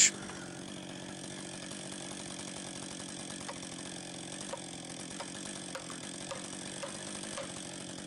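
Chainsaw idling steadily at a constant pitch, with a few faint light ticks over it in the second half.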